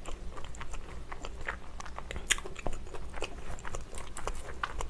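Close-miked chewing and biting of french fries dipped in ketchup: a run of small, irregular wet clicks and soft crunches.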